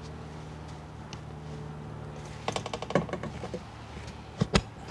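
Small metal parts of a disassembled ABS modulator clicking and tapping against the aluminium body and the workbench as they are handled: a short run of light rattling clicks midway, then two sharp knocks near the end, over a steady low hum.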